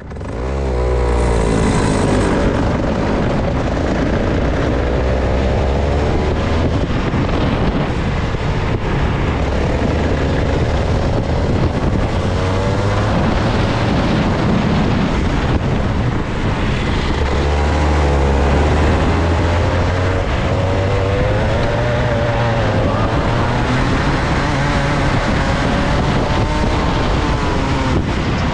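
Two-stroke kart engine running hard on the track, its pitch rising and falling over and over as the throttle opens on the straights and lifts for the corners. The sound fades in over the first second.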